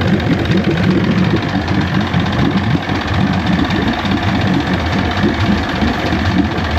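1973 Johnson 65 hp two-stroke outboard motor idling steadily with a fast, rough beat. It is running cold, its thermostat not yet open, which the mechanic later puts down to a bad thermostat.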